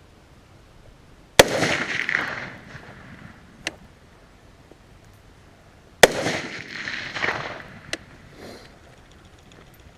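Two single gunshots about four and a half seconds apart, each followed by a rolling echo that dies away over about a second.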